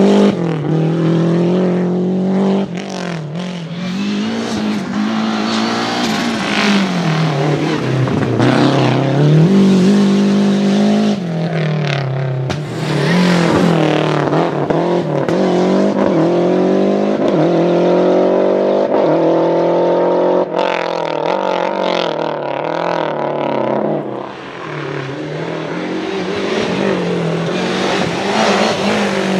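Lancia Delta HF Integrale Group A rally cars' turbocharged 2.0-litre four-cylinder engines revving hard as they drive past. The pitch climbs through the gears and drops back at each shift or lift, over several passes.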